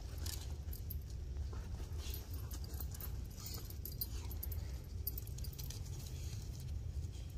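Dogs moving about and sniffing, with faint scattered jingles and rustles over a steady low rumble.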